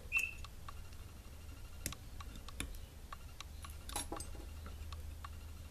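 Faint scattered ticks and light clicks of tying thread and fingers working a whip finish at the head of a fly in a fly-tying vise, with a short high squeak just at the start.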